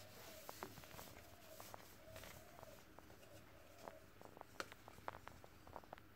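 Very quiet: faint rubbing of a paper towel over a glass-ceramic cooktop as cleaner is buffed off, with scattered small clicks and taps in the second half.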